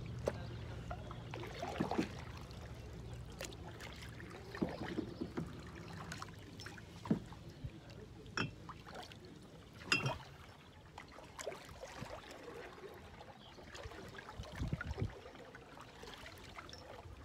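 Canoe paddle strokes in calm water: quiet dips and trickling drips from the blade, with scattered light knocks every second or two.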